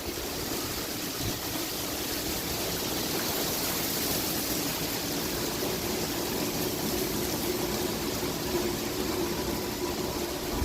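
Heavy thunderstorm rain coming down, a steady rushing hiss that holds even throughout.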